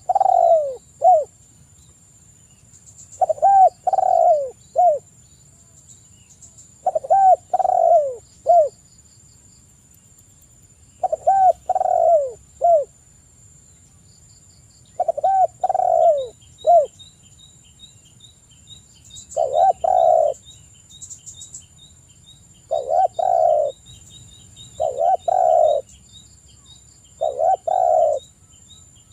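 Spotted dove (tekukur) cooing in repeated phrases about every three to four seconds, each a quick run of three or four low coos. A steady high-pitched whine and faint high chirps run underneath.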